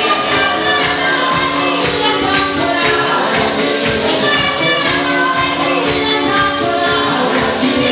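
Live gospel praise singing: several voices amplified through microphones over a steady percussion beat.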